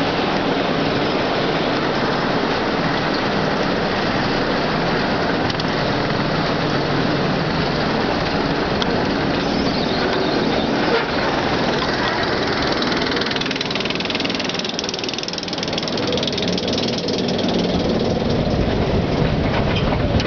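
Bobsled roller coaster car hauled up its chain lift with a steady mechanical clatter, then rolling over the crest; in the last few seconds a low rumble of wheels and wind grows as the car picks up speed down the trough track.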